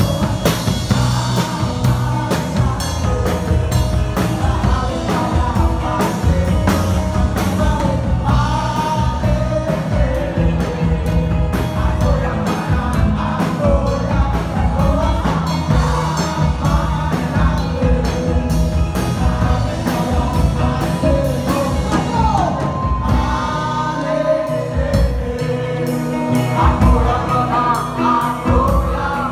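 Live indie folk band music: a drum kit keeps the beat under singing.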